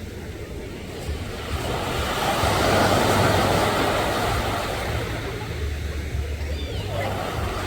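Ocean surf: a wave breaking and washing in, building to its loudest about three seconds in and then easing off, over a low steady rumble.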